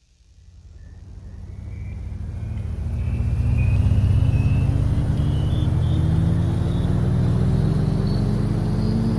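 A low rumble fading in over about three seconds, then holding steady, with tones that slowly rise in pitch throughout, like a vehicle gradually speeding up.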